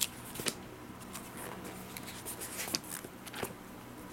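Thin paper pages of a thick printed tool catalogue being handled and turned by hand: soft scattered rustles and taps, about six or seven, over a faint steady low hum.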